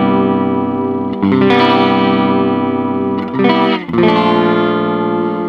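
Electric guitar chords played through an Ibanez SC10 Super Stereo Chorus pedal switched on, each chord ringing out and strummed again about a second in and near four seconds in.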